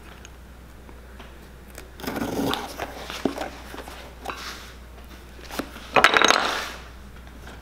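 Thread being drawn through the leather of a boot's welt and insole during hand-welting: a rasping pull about two seconds in and a louder, longer one about six seconds in, with a few light clicks between.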